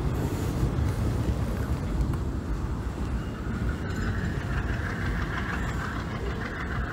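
Freight train of flat cars and a tank car rolling along the track, a steady low rumble of wheels on rail. A click comes about four seconds in, and after it a higher hiss joins the rumble.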